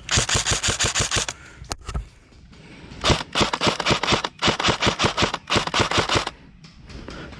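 Airsoft gun firing on full auto, rapid even clicks at about ten shots a second: a burst of just over a second, then a longer burst of about three seconds with two short breaks.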